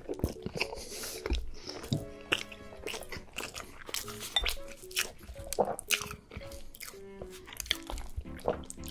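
Close-miked eating: a person biting, crunching and chewing food, with many sharp crackling bites. Background music with short melodic notes plays underneath.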